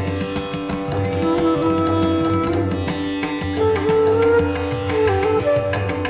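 Indian classical-style instrumental music: a melody with sliding notes over a steady drone, with a low drum pulsing underneath.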